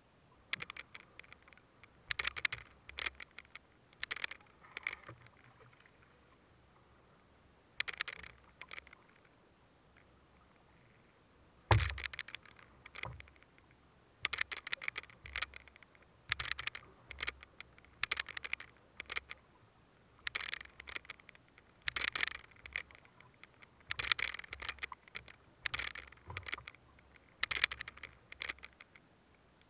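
A fishing handline scraping and rustling in short bursts about every two seconds as it is worked by hand over the edge of a small boat, with one loud thump about twelve seconds in.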